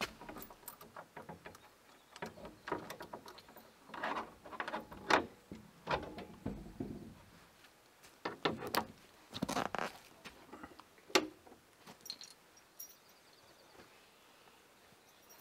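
Padlock and metal hasp on a wooden plank door being unlocked and worked: a run of metallic clicks, rattles and knocks for about eleven seconds, then the door is pulled open.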